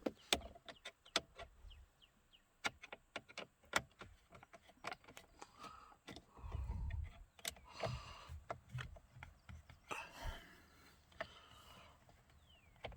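Irregular small clicks, with a few short scraping rubs, of a screwdriver working a screw out of a car's plastic steering-column cover.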